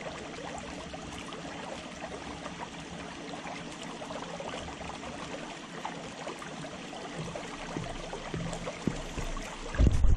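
Pond water lapping steadily against the edge of a concrete pier. Near the end there is a sudden loud thump and rustle close to the microphone.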